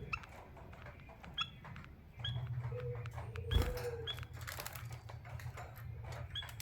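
Small caged finches, a canary and a white-headed munia, giving short high chirp calls every second or so, with sharp clicks. A low steady hum comes in about two seconds in.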